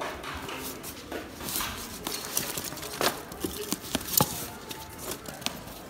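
Plastic stretch wrap and packing clothes rustling and crinkling as they are pulled out of a foam shipping box, with scattered light clicks and knocks from handling.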